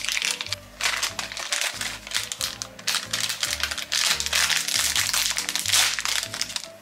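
Thin plastic packaging crinkling and rustling in the hands as a small bag is handled and opened, over background music.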